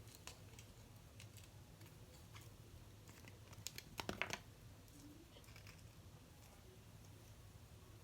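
Faint handling noises at a table: scattered small clicks and taps, with a short cluster of sharper clicks about four seconds in, over a low steady room hum.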